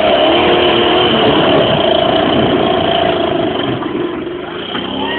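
Competition rock-crawler buggy's engine revving hard under load as it climbs, the pitch wavering up and down, easing off a little near the end.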